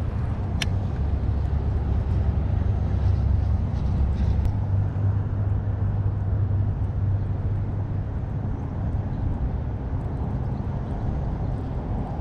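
Steady low rumble, strongest in the first half and easing off later, with one sharp click about half a second in.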